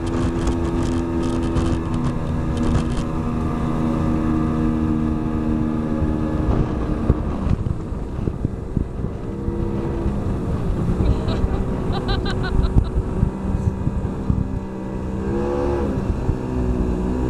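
Yamaha 30 hp outboard motor running at speed while towing a tube, with a steady engine note over wake and wind noise. Its pitch dips about halfway through and shifts again near the end as the throttle changes.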